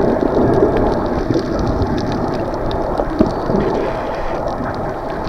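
Strong wind and rough sea: a steady rushing noise, with gusts of wind rumbling on the microphone.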